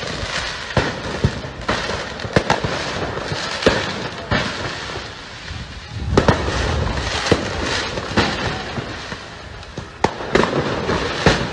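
Street-riot footage sound: a steady rushing noise with many sharp bangs and pops at irregular intervals, getting louder about six seconds in, around a burning vehicle in the street.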